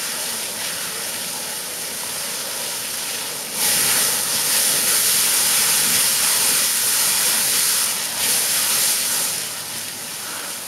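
Handheld fire extinguisher discharging at a burning fuel pan: a loud, steady hiss cuts in about a third of the way in, breaks off for a moment and resumes briefly, then stops near the end. Underneath it runs a steadier background rush.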